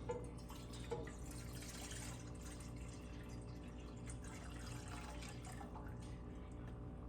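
Water being poured into a cooking pot, a faint, even splashing trickle that starts about a second in, with a small click just before, over a steady low hum.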